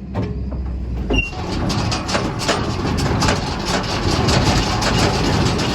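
Tractor-driven Massey Ferguson 2270 big square baler running, its mechanism clattering over the low, steady hum of the tractor engine.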